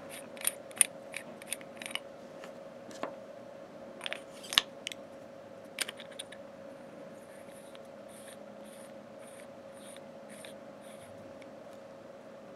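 Brass mechanical mod tube being closed up with a battery inside. First comes a string of sharp metallic clicks, then the end cap's threads rasp in short strokes, about two a second, as the cap is screwed down.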